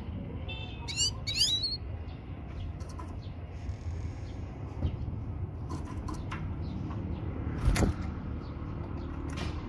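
Female finch calling, presented as a call to stir a male to breed: a few quick sweeping chirps about a second in and a short high whistled note around the middle. Sharp clicks come now and then, the loudest near the end, over a steady low background rumble.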